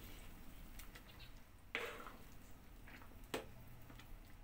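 Ladle stirring a pot of misua noodle soup, knocking a few times against the pot, the clearest knocks about two seconds in and again a second and a half later.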